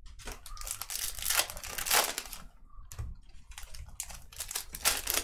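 Trading-card pack wrappers crinkling and tearing as packs are opened, in a run of irregular crinkles.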